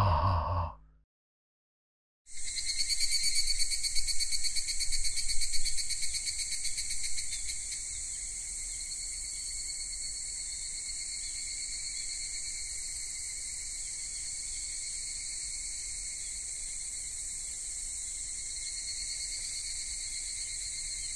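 Insects chirring in a steady, high, fast-pulsing trill that starts about two seconds in. It is louder and uneven for the first few seconds, then settles to an even level.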